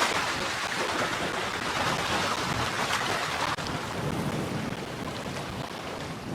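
Steady rush of sea waves with wind buffeting the microphone, with a brief dip about three and a half seconds in.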